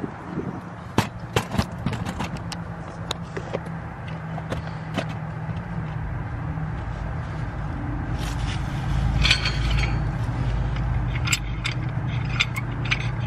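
Metal tools clinking, scraping and rattling as they are handled around a car's brake caliper: scattered sharp clicks, over a steady low hum.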